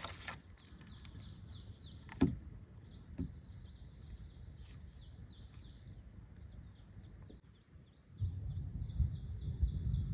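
Small birds chirping over and over, with a sharp click at the start and two knocks a second apart, about two seconds in. A low rumbling noise sets in about eight seconds in.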